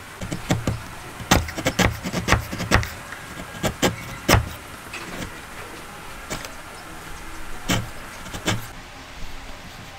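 Wood chisel pushed by hand, paring waste from dovetail sockets. It makes a quick, irregular run of sharp clicks and snaps as the blade cuts through the wood fibres. The strokes are densest in the first half, grow sparser, and stop a little before the end.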